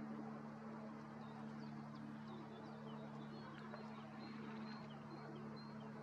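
Faint steady low hum with small birds chirping: scattered short high chirps that fall in pitch, then from about two-thirds of the way in a run of short high notes repeating about twice a second.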